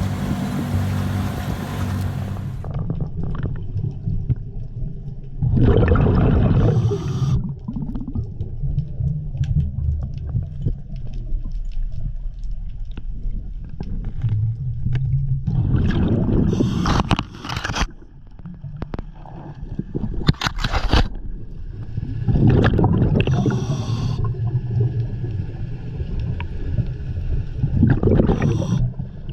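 Muffled, underwater-sounding audio: a steady low hum with surges of gurgling, bubbling water every several seconds.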